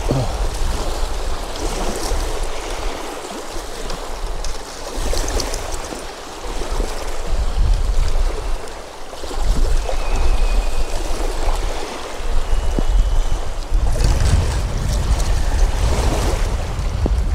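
Gusty wind buffeting the microphone in low rumbling surges, over choppy, wind-driven lake waves washing onto a rocky shore.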